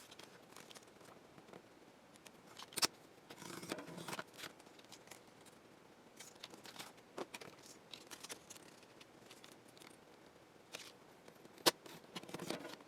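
Sheet of plastic polarizing film being cut with a hand cutting tool: faint scraping strokes and light clicks, with a sharper click and a short scrape near the end.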